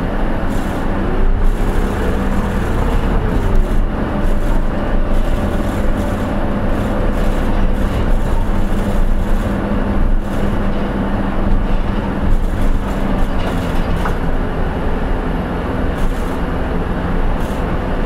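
Hino Poncho small diesel bus heard from inside the passenger cabin while under way: a steady engine hum over road and running noise. A whine rises and falls about two seconds in, and a few short knocks and rattles come through.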